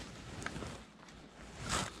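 Rustling handling noise from the angler's hands and clothing as he takes hold of the fishing line, with a small click about half a second in and a louder brief rustle near the end.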